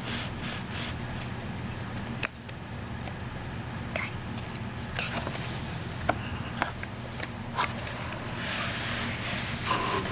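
Scattered clicks and scrapes of a children's picture book being handled as its pages are turned, over a steady low hum.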